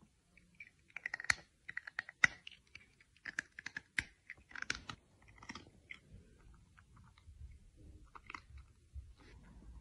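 A cat chewing food close to the microphone: irregular crunches and clicks of its teeth. The bites come thick and fast through the first half, then thin out after about six seconds.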